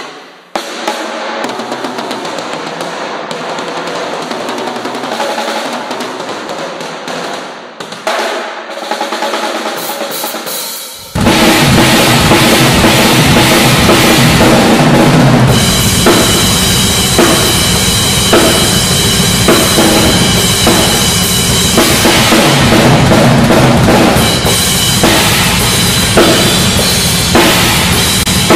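Drum kit played hard, with snare, bass drum and cymbals. The first eleven seconds or so are thin and quieter, with no deep low end; then it comes in suddenly at full loudness with heavy bass drum and stays there.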